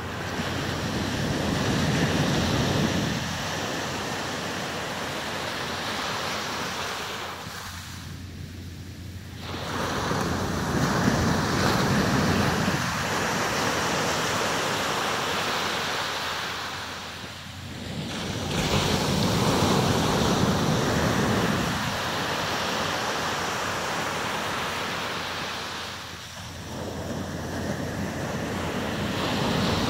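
Atlantic surf breaking on a sandy beach and washing back, a steady rush that swells with each breaking wave about every eight or nine seconds.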